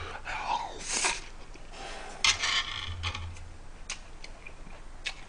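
Eating sounds: chewing a mouthful of rice and bulgogi, with a few sharp clicks of metal chopsticks against the dish.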